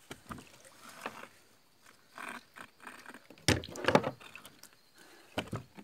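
Scattered knocks and thumps on a plastic boat deck as a large peacock bass is handled with a lip grip and laid on a measuring board. The loudest thump comes about three and a half seconds in, with another shortly before the end.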